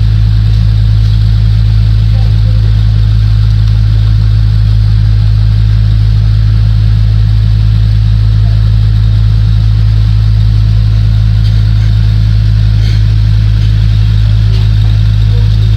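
Loud, steady low hum that holds one pitch without change.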